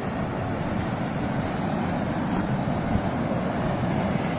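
Small waterfall and rapids rushing steadily over rock ledges: a continuous, even wash of falling water.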